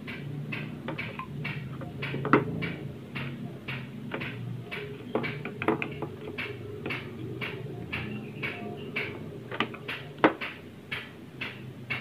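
Side-cutting pliers snipping and working at component leads on a washing-machine control circuit board: a run of small irregular clicks with several louder snaps. A low steady hum runs underneath.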